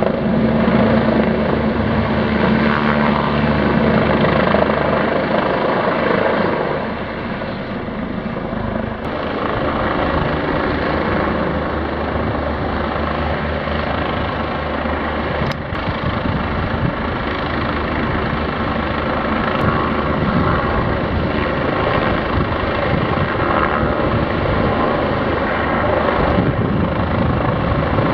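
Helicopter flying close by: steady rotor chop and engine noise, somewhat louder for the first seven seconds, then dropping a little.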